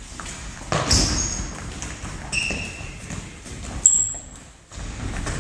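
Indoor football on a wooden sports-hall floor: shoes squeak sharply on the boards three times, the loudest about four seconds in, with the ball and feet thudding and knocking in between.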